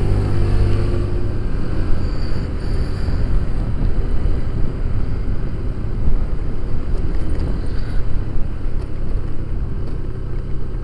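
Motorcycle riding at low road speed, its engine running steadily under a constant low rumble of wind on the onboard microphone.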